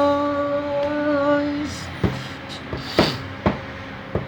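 Worship song: a singer holds one long note that ends about a second and a half in, followed by quieter accompaniment with a few sharp percussion hits.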